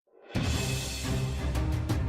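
Background music: after a split-second gap, a new track starts with a heavy, low bass line and regular drum hits.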